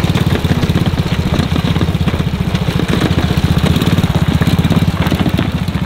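Small engines running slowly and steadily with a rapid, even putter, from a go-kart and the utility vehicle following it along a gravel track.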